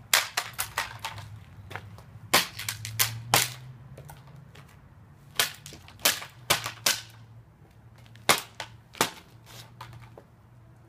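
Sharp cracks and clacks of a plastic Crosman airsoft shotgun being stomped on against asphalt and breaking apart, in four quick bursts of several hits each.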